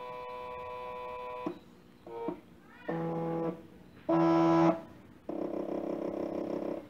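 NEMA 17 stepper motor (17HS4401) driven at several step rates, whining at a different steady pitch for each: a steady tone at first, then short bursts separated by brief pauses, with a quick rising sweep between them. The loudest burst comes about four seconds in, and a buzzier tone follows near the end.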